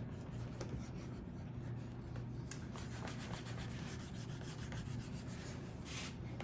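Hands rubbing down a leather saddle seat, pressing the glued leather onto the seat: soft scuffing strokes, with a louder rub about two and a half seconds in and another near the end, over a steady low hum.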